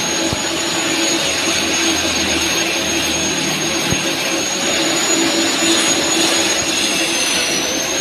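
TIG welding arc burning steadily: an even hiss with a thin, high-pitched whine held over it.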